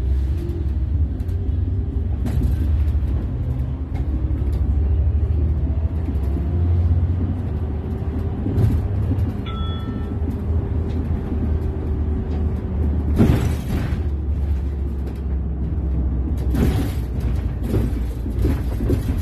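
Inside an Iveco Urbanway 18M articulated city bus under way: a steady low rumble of the engine and running gear, with an engine note that rises and falls in pitch. A short beep sounds about halfway, a brief hiss follows a few seconds later, and body rattles and clicks come near the end.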